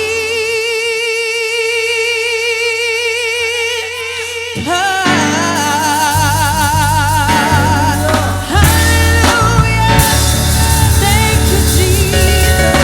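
Gospel worship music with a singer. A long note is held with vibrato over light backing, then bass and drums come in about five seconds in and the singing goes on over the full band.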